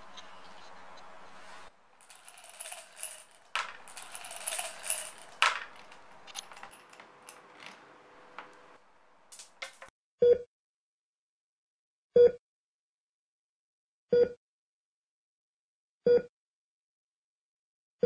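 A steady hum, then a clatter and rattle of small hard objects for several seconds. About ten seconds in, a heart monitor starts beeping single tones once every two seconds, five beeps in all.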